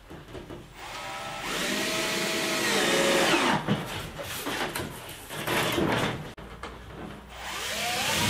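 Power drill driving screws into plywood deck panels, its motor whining upward in pitch as it spins up. There is one long run from about a second in, and a shorter one near the end.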